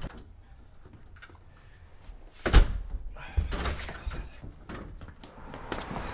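A house front door slams shut about two and a half seconds in, with a deep thud, followed by a few quieter knocks and thuds.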